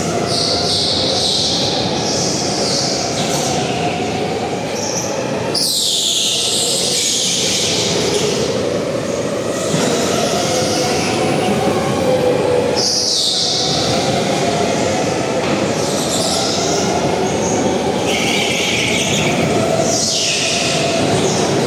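Go-kart driving on the track: a steady drone that rises and falls in pitch as it speeds up and slows, with a bright high hiss swelling several times.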